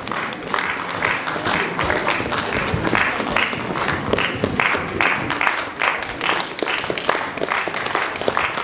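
Concert audience applauding, the clapping swelling in a regular beat about twice a second.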